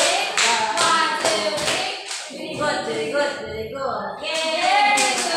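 Singing with hands clapping along to a steady beat. The clapping pauses in the middle and picks up again near the end.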